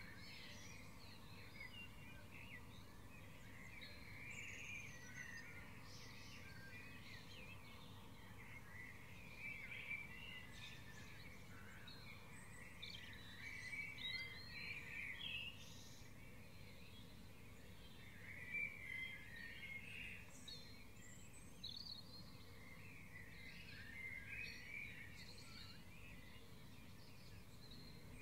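Faint dawn chorus field recording: several songbirds singing at once in a tangle of overlapping chirps and short songs, over a low steady background hiss.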